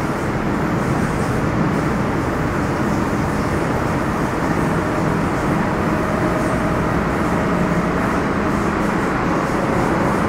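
Running noise inside an MTR Metro-Cammell M-Train electric multiple unit with GEC GTO chopper traction, moving between stations: a steady, loud rumble of wheels on rail and traction equipment. A faint steady whine joins about halfway through.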